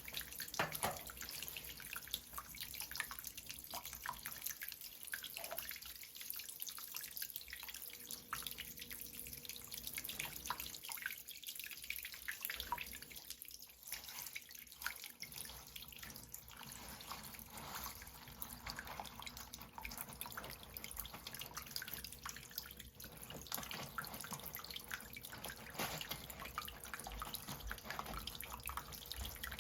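Water trickling steadily, with a constant patter of small drips and splashes, from a homemade indoor water feature.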